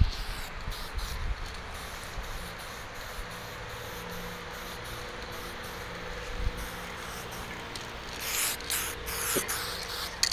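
Aerosol spray paint can hissing as paint is sprayed onto a board, with a couple of short, louder bursts near the end.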